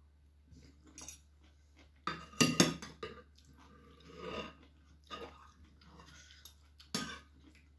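Metal fork and spoon clinking and scraping against a ceramic dish, with chewing as a mouthful of rad na is eaten. The clatter comes in short scattered clicks, loudest a little over two seconds in.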